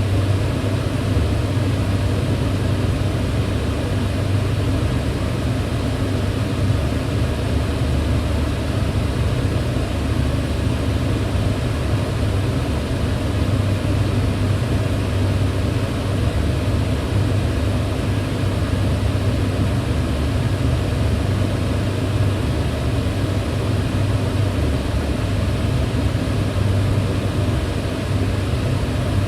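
Kitchen range hood fan running steadily: a constant whooshing hum, strongest in a low drone, with even air noise above it.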